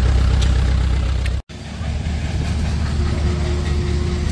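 Engine idling steadily with a low rumble. The sound cuts out for an instant about a second and a half in, then resumes.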